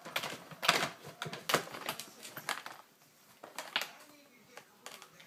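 Irregular clicks and knocks of hard plastic as a cat paws at a round plastic cat toy, with a few louder clacks in the first half and fewer later.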